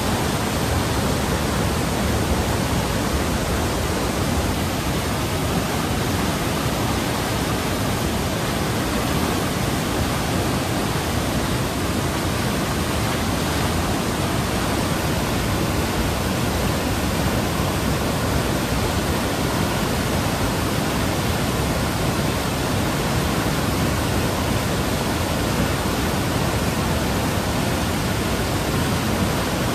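Flood-swollen mountain river running high through whitewater rapids over rocks: a steady, loud rush of water.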